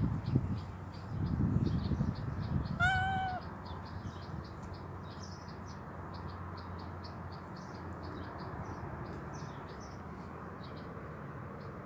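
A tabby kitten meows once, about three seconds in: a short mew of fairly even pitch. Low muffled thumps come in the first few seconds, and short high chirps of small birds sound in the background.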